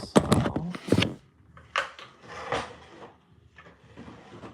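Handling noise: a quick run of loud knocks and clatter in the first second, then a few shorter scraping or rustling sounds, as objects are moved and set down on a work surface.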